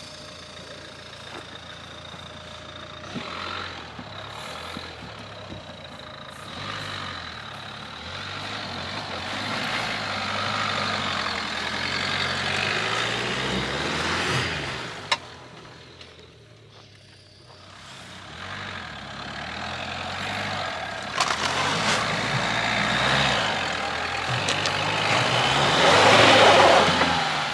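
Dacia Duster 4x4 engine working hard under load up a steep grassy slope. Its note steps up and down as the revs change, falls away briefly about two-thirds of the way through, then climbs again to its loudest near the end, with a rushing noise over it.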